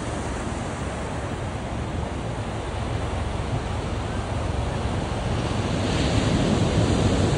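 Ocean surf washing up the beach, with wind buffeting the microphone; it grows a little louder about six seconds in.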